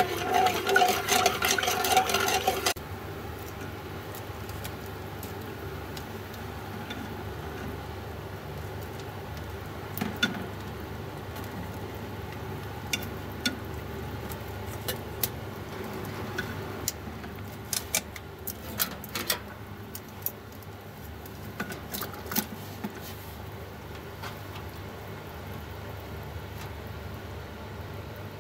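A metal utensil stirring and scraping in an aluminium cooking pot for the first few seconds, then a steady low hum with scattered light metallic clicks of utensil against pot.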